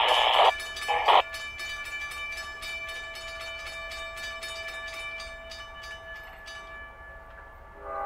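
A GE locomotive's Nathan K5HL air horn ends a long, loud blast about half a second in and gives a short blast about a second in, then starts sounding again right at the end. Between the blasts a grade-crossing bell rings in an even rhythm and fades out near the end.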